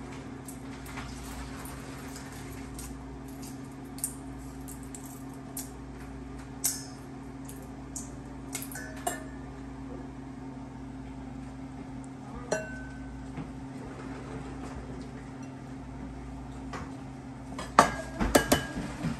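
Kitchen dishes and utensils clinking and knocking on the counter: scattered light clicks, then a quick cluster of louder clatters near the end, over a steady low hum.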